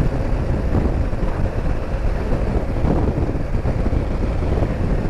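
Steady wind rush on the microphone over the running flat-twin engine of a BMW R 1200 GS motorcycle, ridden at road speed.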